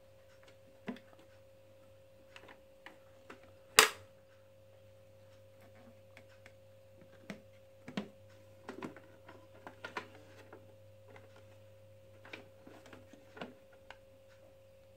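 Hard plastic casing and fold-down handle of an ATM003 toy ATM savings bank being handled, giving scattered clicks and knocks as it is lifted and turned. One sharp, loud clack comes about four seconds in.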